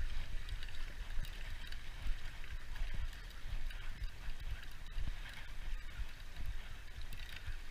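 Wind buffeting the microphone in an uneven low rumble, over a steady wash of water along the rocky shore, with a few scattered faint clicks.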